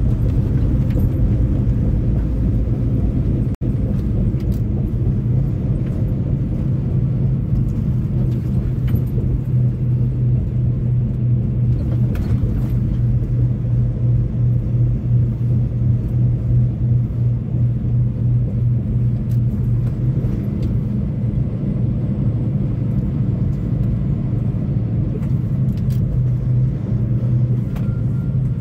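Semi-truck's diesel engine running steadily, a continuous low drone.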